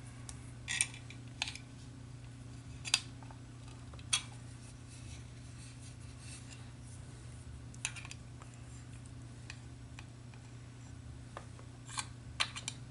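Scattered light metallic clicks and taps of a small wrench and the metal parts of a soldering iron stand being handled and adjusted, over a steady low hum.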